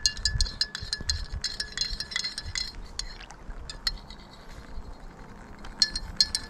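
A utensil stirring briskly in a ringing container: rapid clinks, about five a second, for the first couple of seconds, then a few scattered clinks and a short quick burst near the end.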